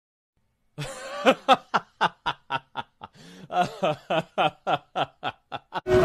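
A person's snickering laugh: a run of short, pitched huffs, about four a second, starting about a second in with a short break around the middle.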